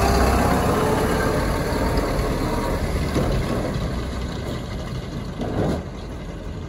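Engine of a 1923 Leyland SG7 bus running as the bus drives off, the sound fading steadily as it moves away, with a brief louder sound near the end.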